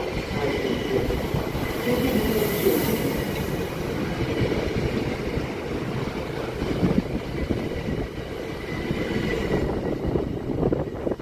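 ÖBB Cityjet (Siemens Desiro ML) electric multiple unit rolling past close by along the platform: wheels running on the rails under a steady rumble, with a steady high whine.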